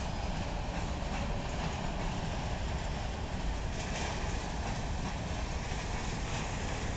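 Freight train of covered hopper cars rolling past close by: a steady rumble of steel wheels on the rails, with a few faint clicks.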